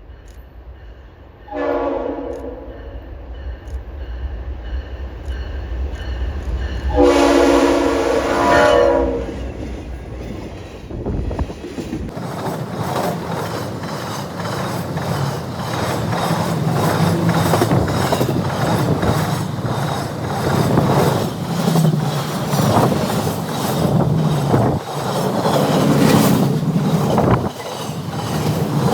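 Train horn sounding twice, a short blast and then a longer one of about two seconds, each a chord of several tones. The train then passes, its wheels clicking steadily over the rail joints.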